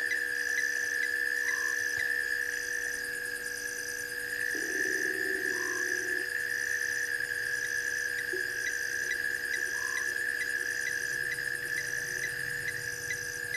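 Night chorus of frogs and insects: a steady high trill, a shorter higher chirp repeating about once a second, and a brief rising call every four seconds or so.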